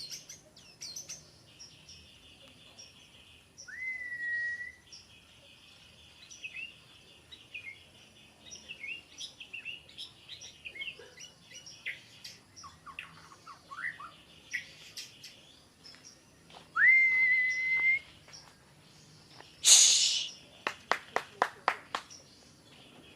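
White-rumped shama (murai batu) singing: a varied run of clear whistles, several rising and then held, mixed with quick chattering notes. Near the end comes a loud harsh rasp followed by a rapid string of sharp clicks.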